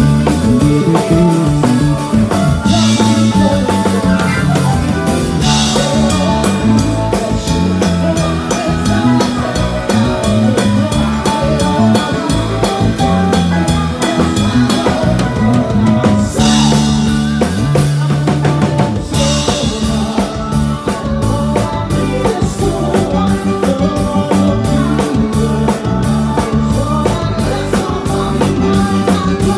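Live band playing loud rock music, led by a drum kit with a steady beat and bass guitar, heard from on stage.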